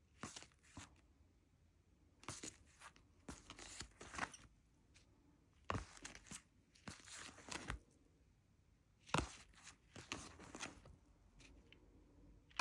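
Tarot cards being handled and flipped through by hand: short papery rustles and slides in irregular bursts, with quiet gaps between.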